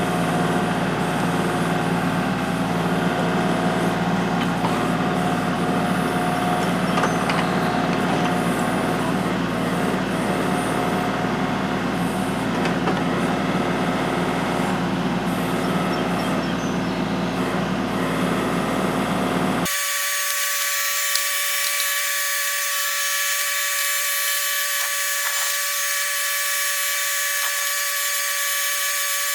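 Kubota L3301 tractor's three-cylinder diesel engine running steadily. About twenty seconds in, the sound cuts abruptly to a thin, high-pitched buzz with no low end.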